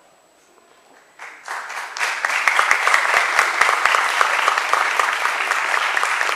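Theatre audience applauding. A second or so of quiet gives way to clapping that swells within about a second into steady, dense applause.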